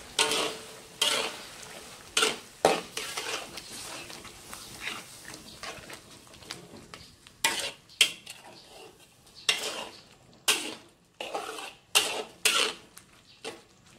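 Metal spatula scraping and knocking against a wok, stirring jackfruit simmering in thick coconut milk, in about a dozen irregular strokes over a faint sizzle.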